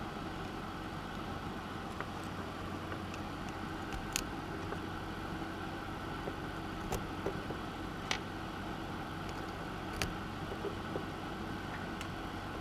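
Potentiometers being pressed into a circuit board and clicking into place: about five short, sharp clicks a couple of seconds apart, over a steady low hum.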